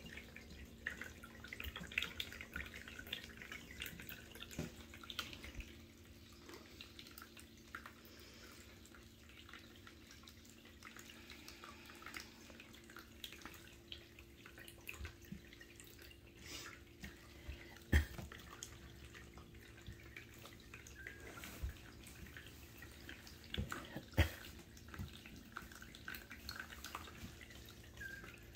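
Faint scattered scratching and rustling of newborn kittens' claws on a knit blanket as they crawl, with two louder sharp knocks in the second half, over a faint steady hum.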